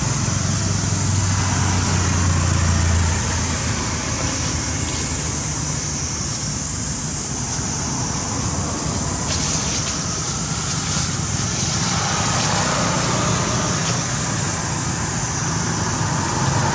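Steady road-traffic noise with a low engine hum, strongest in the first few seconds, under a constant high-pitched hiss.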